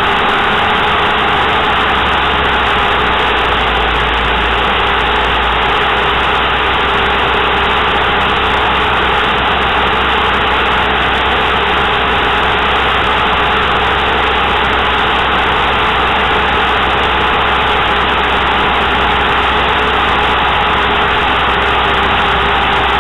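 Steady, loud in-flight noise of a light aircraft, a constant rushing drone with a faint steady hum and a low rumble under it.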